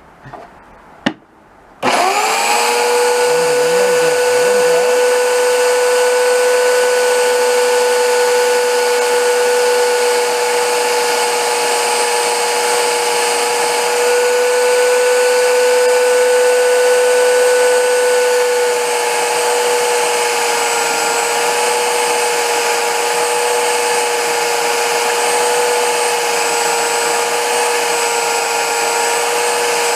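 A few clicks, then an electric belt sander switches on about two seconds in, its whine rising quickly to speed. It then runs steadily at full speed.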